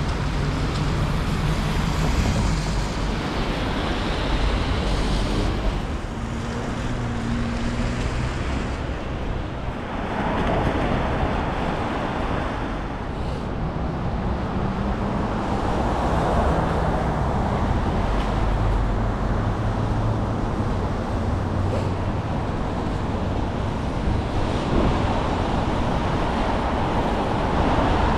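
City street traffic: a steady wash of car engine and tyre noise from passing vehicles, with low engine hum rising and fading as vehicles go by.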